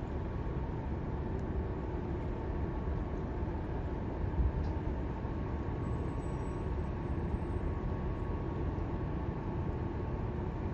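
Steady low rumble of a passing cruise ship's engines and machinery, with a faint constant hum above it.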